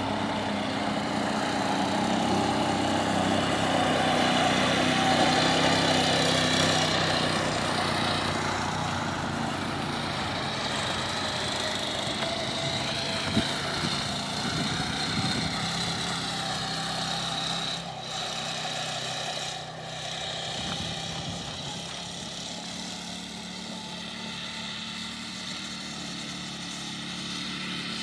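A small dune buggy's engine runs and revs up and down as it is driven across a field. It is loudest in the first several seconds and grows fainter as the buggy moves farther off.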